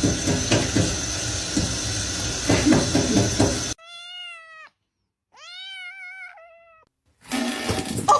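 A cat meowing twice, two drawn-out meows that rise and then fall in pitch, the second one longer, following a few seconds of noisy sound with a steady high whine.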